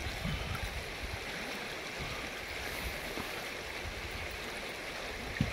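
Steady rush of a flowing river, with one short low thump near the end.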